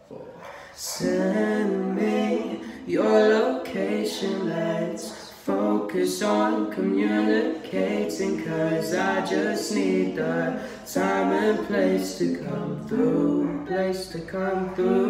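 Young male voices singing a cappella in close harmony, several lines together without instruments, in phrases broken by short breaths.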